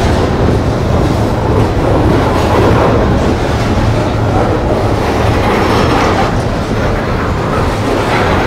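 A coal train's steel hopper cars rolling past a few feet away: a steady, loud rumble of wheels on rail.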